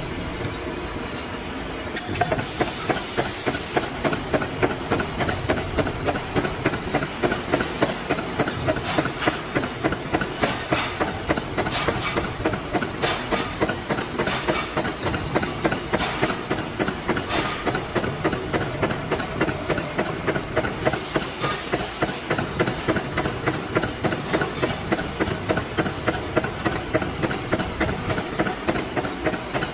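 Metalworking lathe with a forming roller running, a steady machine din with a regular knocking of about three beats a second that sets in about two seconds in.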